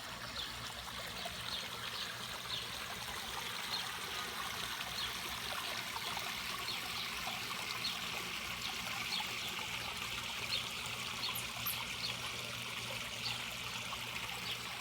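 Water trickling and splashing steadily over a backyard pond's waterfall, with small irregular splashes throughout.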